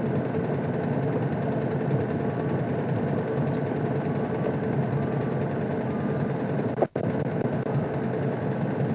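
Game-drive vehicle's engine running steadily, a constant mechanical hum, with the sound cutting out for a moment about seven seconds in.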